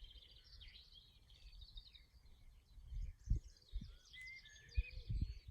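Faint mixed birdsong: continuous high twittering and warbling from several small birds, with a short whistled note about four seconds in. A few low thumps near the end.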